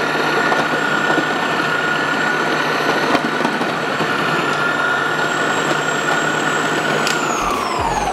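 Vidiem Tusker mixer grinder's motor running steadily at high speed with a high whine while its food-processor slicing disc cuts an onion pushed down the feed chute. About seven seconds in it is switched off and the whine falls in pitch as the motor spins down.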